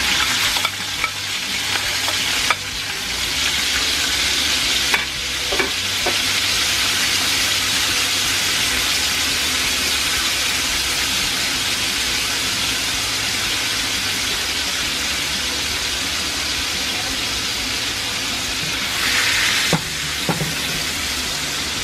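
Vinegar-soaked sliced red onions sizzling steadily in hot oil in a frying pan, with a few light knocks against the pan. Near the end a wooden spoon stirs them and the sizzle briefly swells.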